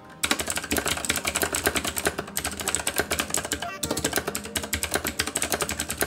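Fast typing on a Tomoko MMC023 mechanical keyboard with clicky blue-style switches: a rapid stream of loud, hollow clacks as the thin ABS keycaps bottom out, with a brief pause about four seconds in.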